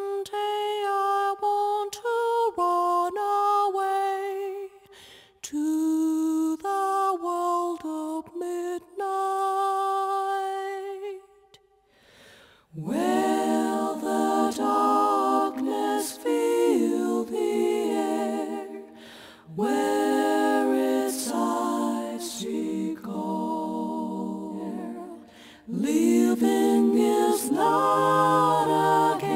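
Unaccompanied voices singing an anime soundtrack piece: one voice holding long notes for the first ten seconds or so, then after a short break several voices singing together in harmony, in phrases that stop and start again.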